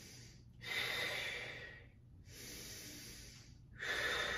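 A person breathing slowly and deeply while holding an intense standing forward-bend stretch: three long breaths, the first, about half a second in, and the last, near the end, louder than the softer one between.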